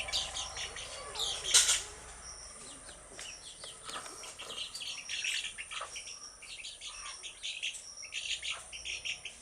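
Domestic chicks peeping in rapid bursts of short, high chirps, with a brief loud rustle about a second and a half in.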